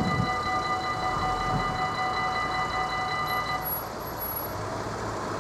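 Level-crossing warning bell ringing steadily while the barriers rise after the trains have passed. It cuts off suddenly about two-thirds of the way in, as the barriers come fully up. Road-vehicle noise follows.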